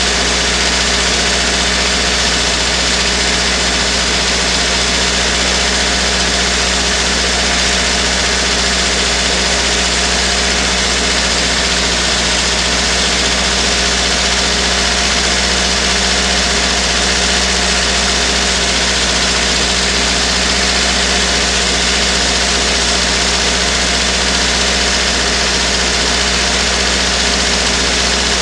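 VAZ-2109's four-cylinder petrol engine idling steadily while warming up, heard close up from inside the engine bay.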